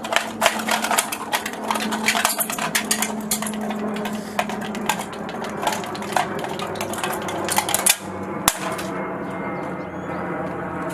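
Rapid clinking and tapping of a hot metal knife blade striking and scraping at a phone on concrete, many sharp hits a second, stopping about eight seconds in, with one last sharp clink a moment later. The knife is making little headway.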